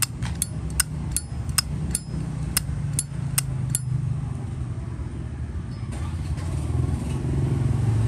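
Zippo lighter's hinged lid flicked open and snapped shut over and over, about ten sharp metallic clicks at two to three a second, stopping about four seconds in. Behind it a low engine drone of passing traffic grows louder towards the end.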